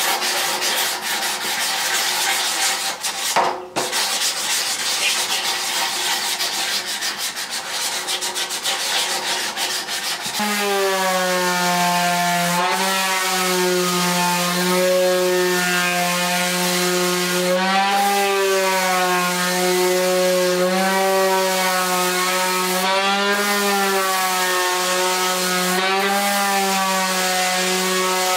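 Power tool abrading a wooden wheelbarrow handle: a rasping, sanding hiss, joined about ten seconds in by a steady motor whine that wavers slightly in pitch as the tool works the wood.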